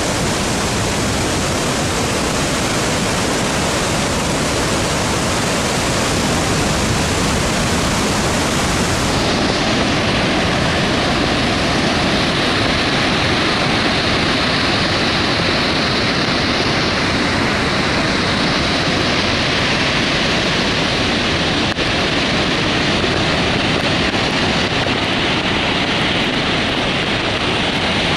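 Victoria Falls on the Zambezi River: a loud, steady rush of falling water, turning a little duller about nine seconds in.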